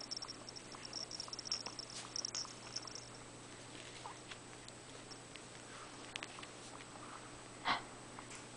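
A baby mouthing and chewing a soft fabric toy: faint wet mouth clicks and smacks, with a light high rustle from the toy being handled during the first three seconds and a short breathy sound near the end.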